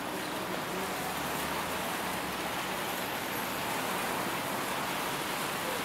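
Steady city street ambience: an even, continuous hiss of traffic on a wet road.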